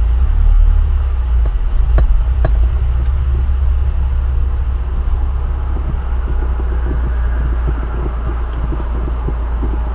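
Steady low rumble of a motor vehicle's engine and road noise, with a few light clicks in the first few seconds; the train horn is not sounding.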